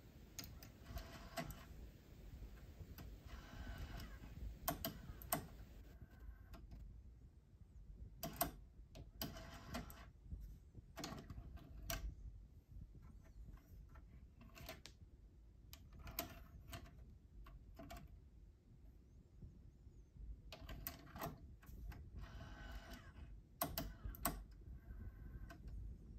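Sony DTC-59ES DAT deck's cassette mechanism: button and compartment clicks, with short motor whirrs as the cassette compartment opens and closes and the tape loads.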